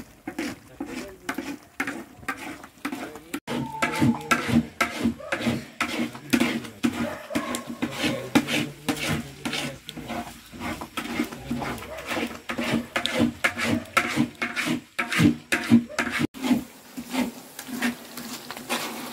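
Wooden paddle stirring and scraping thick, boiling kalu dodol in a large metal wok in repeated strokes, about two or three a second, the mixture well along in its cooking and heavy against the pan.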